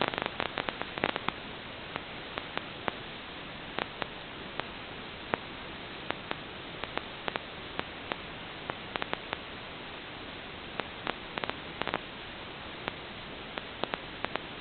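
Steady static hiss with frequent, irregular crackling clicks: the audio channel of an analog 5.8 GHz FPV video link, recorded on the receiver's DVR.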